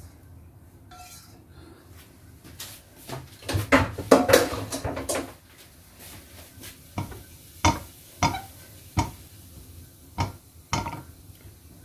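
A spatula scraping fried rice out of a frying pan onto a plate, then about six sharp knocks of the spatula against the pan and plate as the last rice is shaken off.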